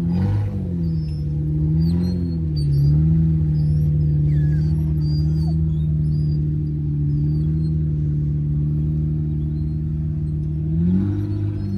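Off-road vehicle's engine running at low revs, the note dipping and rising with the throttle a few times in the first three seconds, then holding steady, and shifting again near the end.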